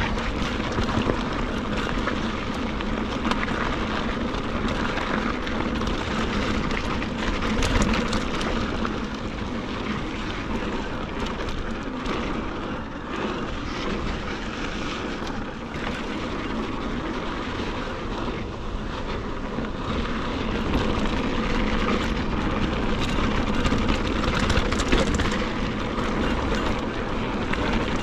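A mountain bike ridden over a dirt and sandy desert trail: a steady rush of wind on the microphone and tyres rolling on dirt, with frequent small knocks and rattles from the bike.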